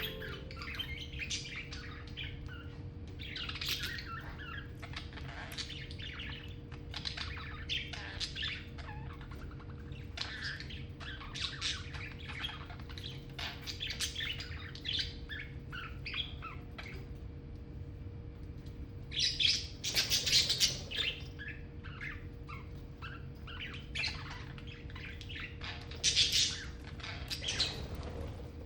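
Pet budgerigars chirping and twittering in a run of short high calls, with a few louder, harsher calls about two-thirds of the way through and again near the end.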